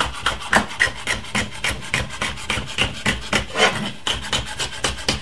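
Kitchen knife slicing a green bell pepper into strips on a wooden cutting board: quick, even chopping strokes, about five a second.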